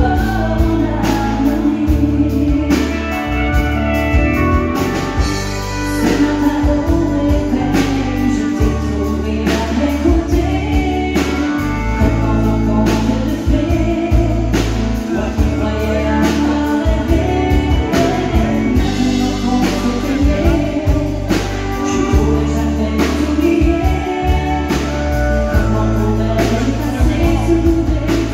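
A live band: a woman singing into a microphone over drums and electric bass guitar, with a steady drum beat.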